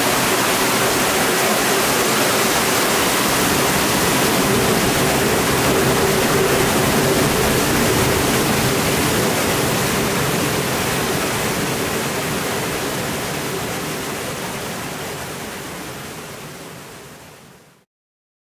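Water mill's jet spraying onto a horizontal water wheel and rushing out through the stone tailrace: a steady, dense roar of falling and splashing water. It fades out over the last several seconds and cuts to silence near the end.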